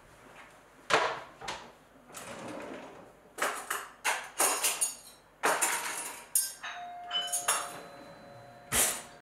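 Crockery and cutlery being handled on a kitchen counter: an uneven string of clinks, knocks and rattles, the sharpest about a second in and near the end. Faint steady tones ring in the last couple of seconds.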